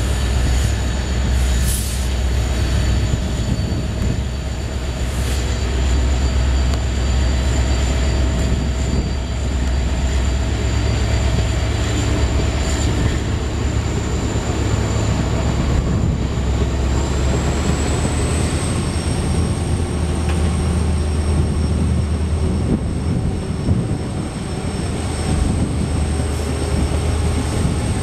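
Passenger train running, heard from an open coach door: a steady low rumble of wheels on rail with noise across the range, and a thin high whine that rises in pitch about two-thirds of the way through, then holds.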